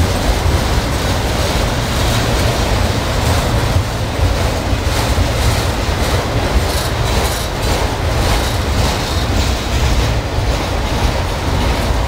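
CSX freight train of autorack cars rolling steadily past, a continuous rumble of steel wheels on the rails, with wind buffeting the microphone.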